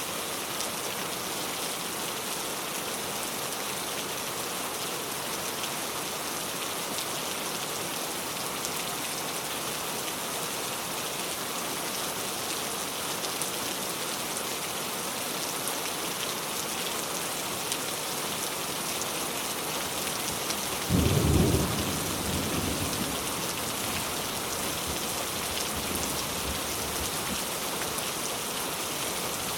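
Steady rain falling on surfaces, an even hiss throughout. About two-thirds of the way through, a short loud thunderclap breaks in and rumbles off over a couple of seconds.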